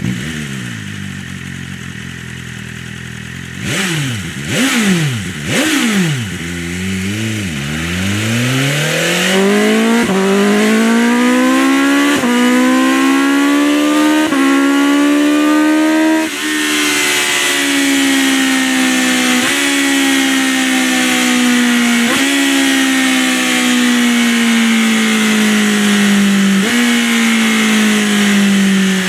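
BMW M 1000 motorcycle's inline-four engine through its performance exhaust. It idles, gets three quick throttle blips, then pulls hard up through the gears with quick upshifts. From about halfway it slows, the note falling with a short blip at each downshift and a rush of wind over it.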